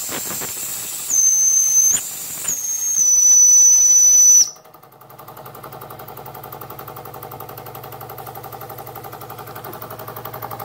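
Jensen Model 70 toy steam engine's boiler whistle blown, a loud shrill tone that steps up and down in pitch and cuts off sharply about four and a half seconds in. After that the small engine runs on with a quieter, steady, fast exhaust beat.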